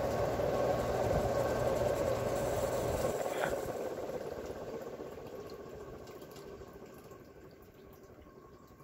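Vintage Ritz 52-inch ceiling fan running with a steady rush of air and a low motor hum; about three seconds in the hum cuts off and a click follows as the fan is switched down to a lower speed. The air rush then fades away steadily as the blades slow.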